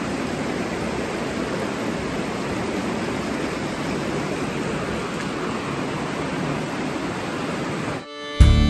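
Running water with a steady, even rushing hiss; fiddle music comes in right at the end.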